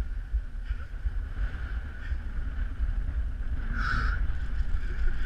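Strong wind buffeting the microphone on a boat, a heavy rumble, with a steady thin whine behind it and one short, louder sound about four seconds in.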